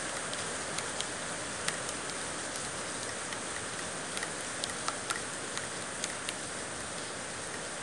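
A mixing utensil clicking lightly and irregularly against a bowl as the cake batter of eggs, sugar, coconut milk and oil is stirred together, over a steady background hiss.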